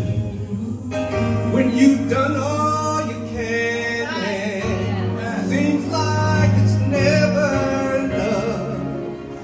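A man singing a slow gospel song into a handheld microphone over instrumental accompaniment.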